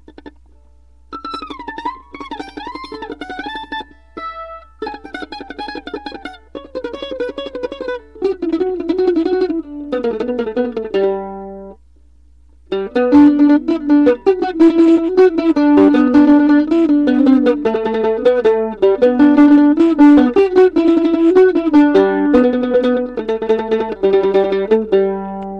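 Mandolin played freely with no set tune: runs of quickly picked notes in short phrases. There is a brief pause near the start and another about halfway through, after which the playing gets louder and busier.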